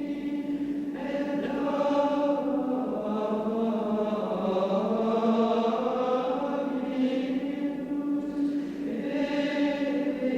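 Soundtrack music of wordless choir-like voices holding long chords that shift slowly in pitch.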